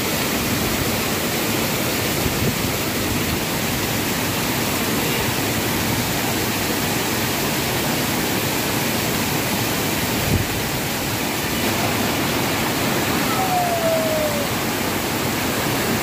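Steady rush of a large waterfall in full monsoon flow, with water cascading over stone steps. Near the end a faint short falling whistle sounds over it.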